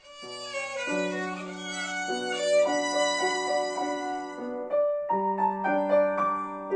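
Violin bowing a melody over piano accompaniment, with a short break in the phrase about five seconds in.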